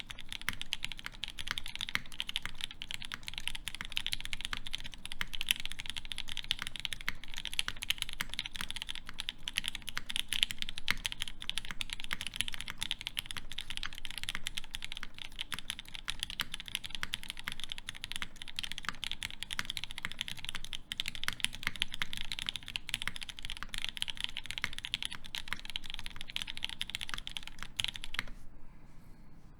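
Fast, continuous typing on a KFE CE mechanical keyboard with lubed Gateron Ink Black linear switches, a polycarbonate plate and GMK keycaps. The keystrokes stop about a second and a half before the end.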